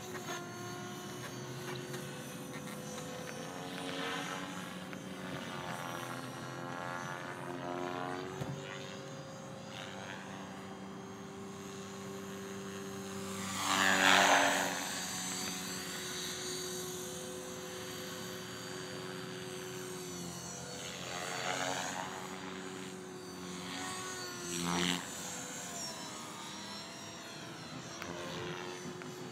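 Align T-Rex 500 electric RC helicopter in flight: a steady motor and rotor whine whose pitch shifts as it manoeuvres, with rising and falling whooshes of the blades as it passes. The loudest pass comes about halfway through.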